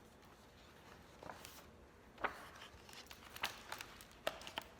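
Faint handling sounds from a picture book being held and shifted: a few soft clicks and light rustles scattered through a quiet room.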